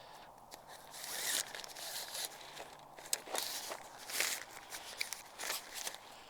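Nylon tent fabric rustling and scraping as a tent pole is pushed through its sleeve, with a few light clicks among uneven bursts of rustle.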